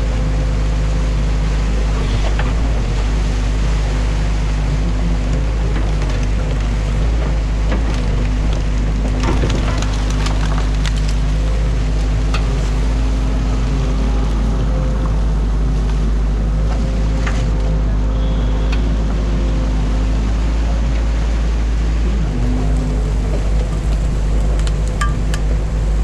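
Excavator's diesel engine and hydraulics running steadily under load, heard from inside the cab, with scattered knocks and cracks as the bucket breaks and lifts sticks and mud from a beaver dam. Water rushes through the breach underneath.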